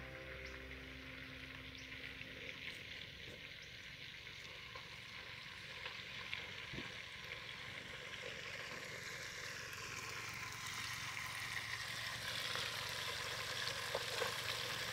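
Steady sizzling hiss with faint scattered crackles, growing louder toward the end: food frying in a metal pot over a wood campfire.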